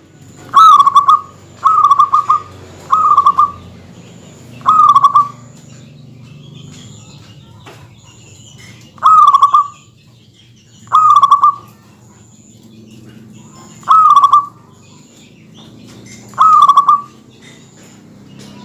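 Zebra dove (perkutut) cooing in short phrases of quick, rapidly repeated notes, eight phrases in all: four in quick succession, then four spaced a few seconds apart. Faint high chirps sound between the phrases.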